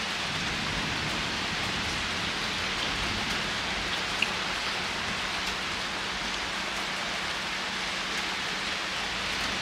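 Steady rain falling on a street, an even hiss with one small drip-like tick about four seconds in.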